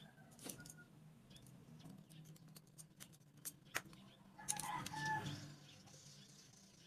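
Scattered light clicks and taps of wooden craft sticks being handled on a wooden board, over a steady low hum. About four and a half seconds in comes a louder, short, call-like sound.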